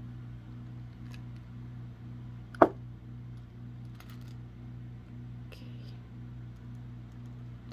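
Gold-tone metal snap hooks on a Louis Vuitton monogram strap clicking as the strap is handled: a few faint clicks and one sharp click about two and a half seconds in. A steady low hum runs underneath.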